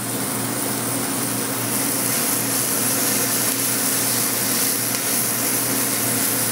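Sliced onion, chopped tomato, scallions and hot pickled peppers sizzling steadily in an oiled, preheated ceramic-coated frying pan as they are stirred.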